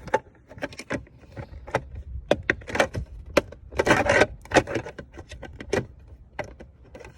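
Plastic mirror cover being handled and fitted onto a new side mirror housing: a run of sharp plastic clicks and rattles, with longer scraping rustles about three and four seconds in.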